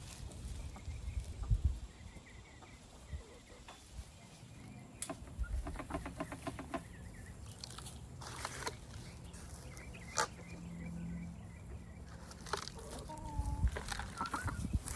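Chickens clucking on and off, with a few sharp knocks in between.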